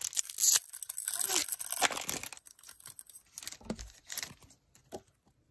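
Foil Yu-Gi-Oh booster packs being torn open and crinkled, loudest in the first two seconds. The sound then thins to a few soft rustles and clicks as the cards are slid out of the packs.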